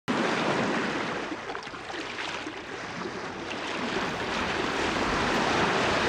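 Water rushing and splashing against a yacht's bow as it moves through the sea: a steady wash that eases slightly in the middle and builds again toward the end.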